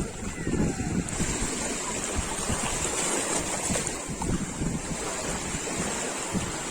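Sea waves washing on a beach, with wind buffeting the microphone in irregular low gusts.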